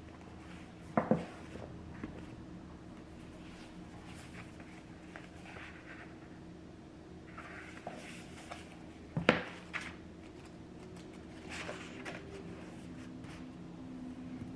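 Paperback books handled at a wooden table: pages fanned and rustling, and books knocked down onto the tabletop, sharply about a second in and loudest about nine seconds in, with a few lighter taps between. A low steady hum runs underneath.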